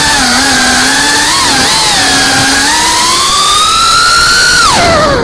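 FPV quadcopter's brushless motors whining over a rush of noise, the pitch wavering up and down with the throttle. The whine climbs steadily for about two seconds, then drops sharply near the end as the throttle is pulled back.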